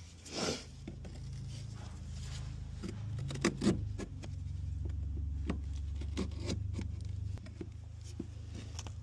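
Small clicks, taps and scrapes of plastic trim being pried at, trying to pop open a little cover, over a low steady hum.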